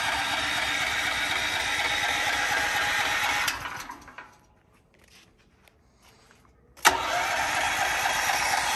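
Electric starter cranking the 457 cc single-cylinder engine of a Westinghouse WGen9500 portable generator. The engine does not catch because the fuel valve is shut off. The cranking winds down and stops about three and a half seconds in, and after a pause of about two and a half seconds it starts again abruptly with a click near the end.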